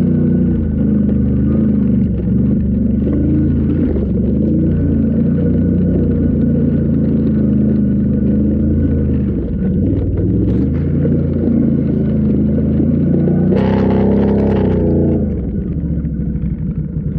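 Off-road vehicle engine running under load, its pitch rising and falling as the throttle changes, with a louder stretch of revving about fourteen seconds in before it eases off.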